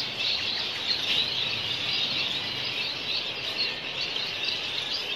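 A roomful of caged small finches chirping and twittering together, a continuous dense chatter of many birds at once.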